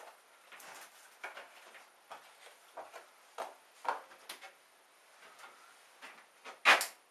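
Scattered knocks and clicks, as of objects being handled and set down, with one sharp, louder knock near the end.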